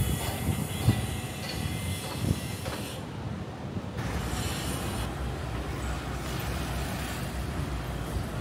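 Outdoor street noise: a steady low rumble with hiss, typical of passing traffic, with a few soft thumps in the first couple of seconds.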